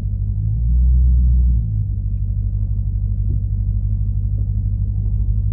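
Hemi V8 engine rumbling low while the car creeps forward, heard from inside the cabin. It swells louder for about a second near the start, then settles into a steady, fast-pulsing throb.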